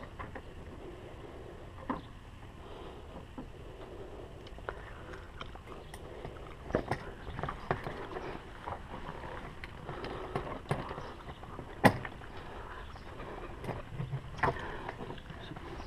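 Scattered clicks, knocks and rustling from hands working a coolant hose and its clamp onto a plastic coolant reservoir in an engine bay, with one sharper knock late on.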